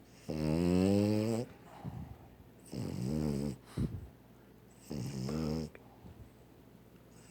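A dog snoring very loud: three long snores about two seconds apart, each a wavering pitched drone, with a short sharp snort just after the second one.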